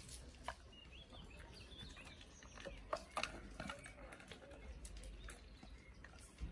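Faint bird chirps, with a few scattered short clicks and taps over a low steady rumble.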